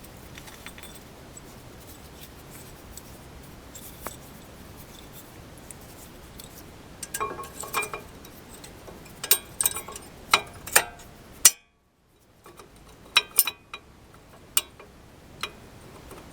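Sharp metallic clinks and taps from steel brake pads and their spring retaining plates being handled and fitted into the caliper bracket, coming in irregular clusters. The sound cuts out completely for about a second midway.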